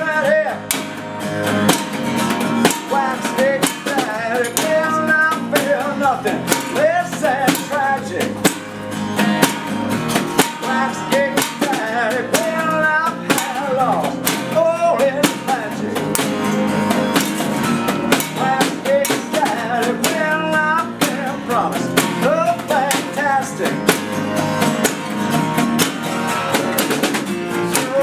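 Live acoustic rock band playing: several acoustic guitars strumming, a snare drum struck with sticks keeping the beat, and a male lead vocal singing.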